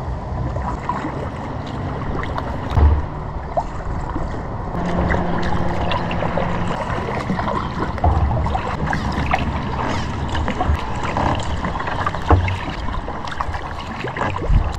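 Kayak paddling on a river: steady water sounds from the paddle and hull, with scattered small drips and splashes. Wind thumps on the microphone a few times.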